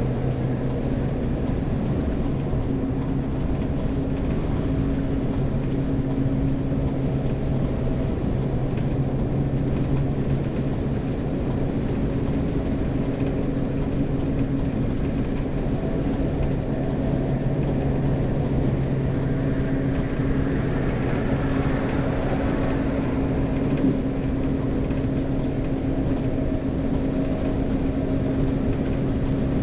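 Heavy camper van's engine running steadily on the road, with road noise: a continuous low hum that holds steady throughout.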